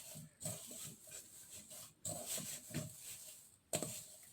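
Hands kneading a soft pastel dough: faint, irregular squishing and pressing, with one sharper knock about three and a half seconds in.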